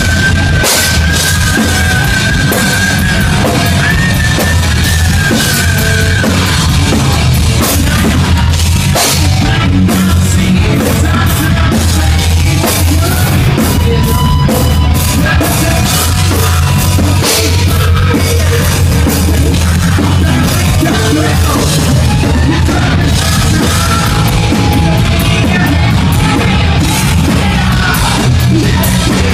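Live hard rock band playing loudly, with a drum kit hit hard and to the fore.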